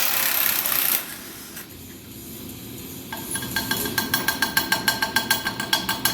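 A loud hiss that stops about a second in. From about three seconds in comes a fast, even run of sharp metallic clicks, about six a second, each with a brief ringing tone.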